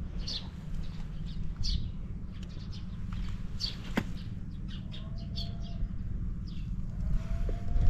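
Honda Motra AD05's 49 cc four-stroke single idling quietly with a low, even rumble, with small birds chirping repeatedly over it. A single sharp click comes about four seconds in.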